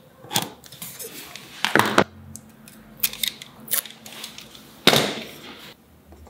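Several sharp knocks and clicks of a steel combination square being picked up, moved and set down against a wooden block on a wooden bench, the loudest about five seconds in.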